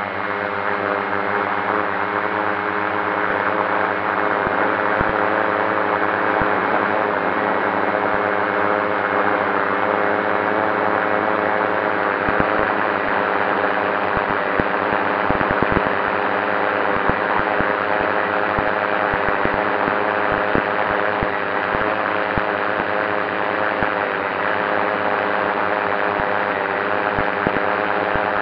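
FPV drone's electric motors and propellers whirring steadily at a held throttle, several steady pitches over a rushing hiss, swelling a little in the first few seconds.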